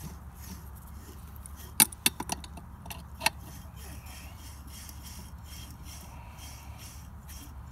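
A few sharp metal clinks about two seconds in and once more a second later, as a pump impeller stage and its housing are handled and slid onto the shaft; a steady low rumble runs underneath.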